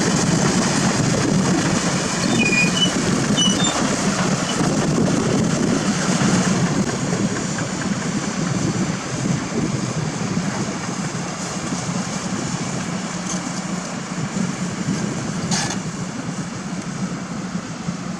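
Diesel engine of heavy construction machinery running steadily under work, with one short knock about fifteen and a half seconds in.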